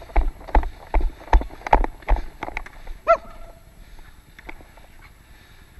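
Running footsteps in sneakers on a plastic dek hockey court, about two and a half strides a second, heard thudding through a body-worn camera, stopping about two and a half seconds in. A short high squeak follows about three seconds in.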